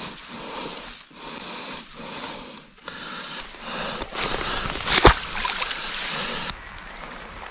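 Close rustling and handling noise as bankside grass brushes against the microphone, with one sharp knock about five seconds in; it gets quieter near the end.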